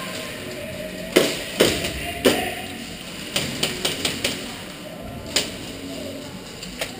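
Airsoft gun firing single shots: a string of about ten sharp cracks at uneven gaps, the three loudest in the first couple of seconds and a quick cluster of four or five in the middle.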